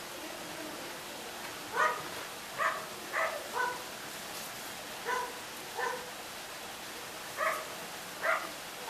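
A dog barking: about eight short single barks, spaced irregularly, over a steady background hiss.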